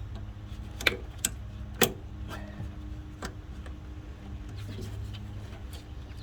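Pliers working a spring squeeze clamp on a rubber heater hose: three sharp metallic clicks in the first two seconds, over a steady low hum.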